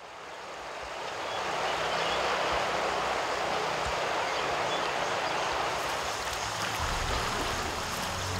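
Steady rush of flowing river water, fading in over the first two seconds. A low hum joins near the end.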